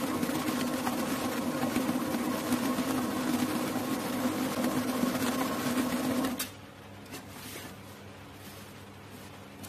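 Commercial planetary stand mixer running with a wire whisk in the bowl, a steady motor hum that cuts off suddenly about six seconds in when the mixer is switched off. A few faint clicks follow.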